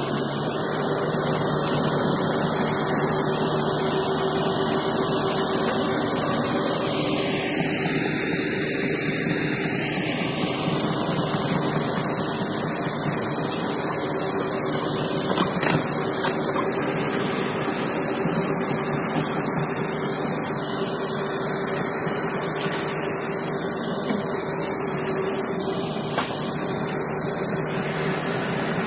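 Komatsu hydraulic excavator's diesel engine running steadily while it digs: a constant drone with a lot of hiss and a steady hum.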